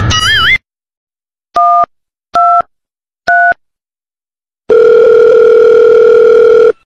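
Mobile phone keypad tones: three short two-note beeps about a second apart as a number is dialled, followed by one steady phone-line tone lasting about two seconds.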